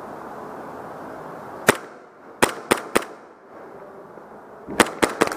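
Airsoft guns firing single shots as sharp cracks: one, then three in quick succession, then three more near the end.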